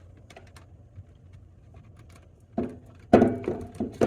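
Faint steady low hum with a few light clicks, then a man's voice starting a little over halfway through and getting louder toward the end.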